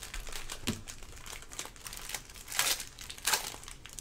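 Foil trading-card pack wrappers crinkling and tearing as they are ripped open and peeled back by hand, in a run of short rustles with two louder ones late on.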